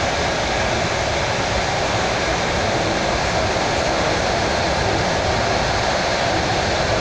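Steady running noise of a suburban electric train moving at speed, heard from inside the carriage.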